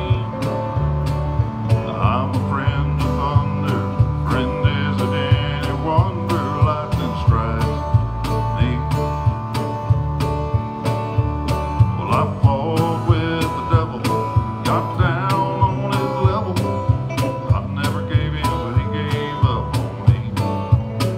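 Live country music, with a guitar playing the tune and a cajón slapped in a steady beat of about two strokes a second.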